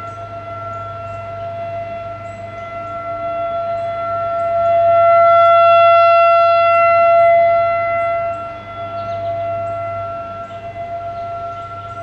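Federal Signal 2001-AC electromechanical outdoor warning siren sounding a steady tone during a test, holding one pitch. It swells louder in the middle and fades again as the rotating siren head sweeps toward and away.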